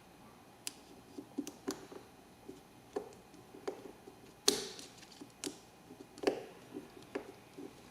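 Irregular small clicks and taps of metal lighter parts and a small tool as a screw is driven back into a vintage gas lighter's body, with a sharper knock about four and a half seconds in.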